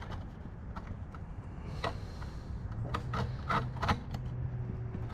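Light handling noises: a few soft clicks and rubbing as a multimeter probe lead and starter wiring are handled, the clicks grouped between about two and four seconds in, over a steady low hum.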